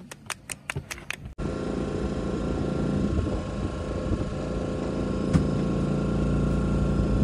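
Brief hand clapping, about five claps a second, then after a sudden cut a steady engine hum with a low drone beside a food truck.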